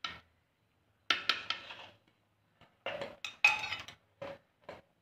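Metal spoon clinking and scraping against a stainless steel cooking pot in two quick clusters of knocks, then two single clinks near the end.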